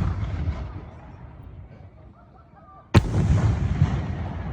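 Rumble of a 5-inch aerial firework shell's bang dying away, then about three seconds in another sharp, loud bang followed by a long, low rolling echo.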